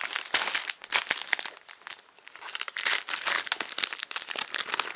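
Packaging crinkling and crackling in a burst of irregular clicks as it is handled, with a short lull about two seconds in before the crinkling picks up again.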